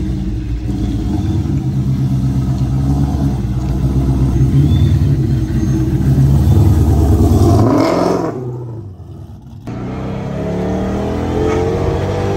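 Dodge Charger's engine rumbling at low revs as the car pulls away, then revving up sharply about eight seconds in. After a short break it accelerates again, the engine note climbing steadily in pitch.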